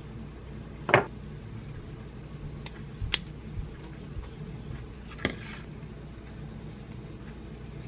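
A few sharp clicks and taps of kitchen utensils: metal tongs clicking as a fried tofu ball is set on a plate of tteokbokki, the loudest about a second in, then a wire egg slicer cutting a boiled egg, with more clicks around three and five seconds. A steady low hum runs underneath.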